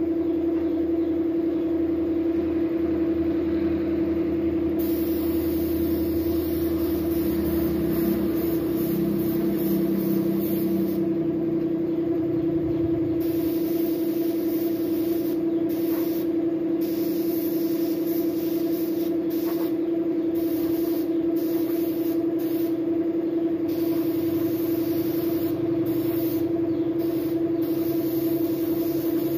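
Paint spray gun hissing in repeated bursts as its trigger is pulled and released, spraying the colour coat onto motorcycle body panels. Under it, a steady hum from the air compressor that feeds the gun runs throughout. The bursts are long at first and become shorter and quicker later on.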